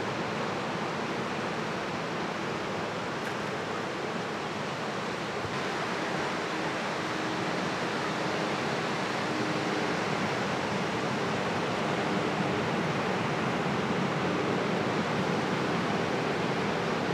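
Ocean surf washing onto the shore: a steady, unbroken rushing noise.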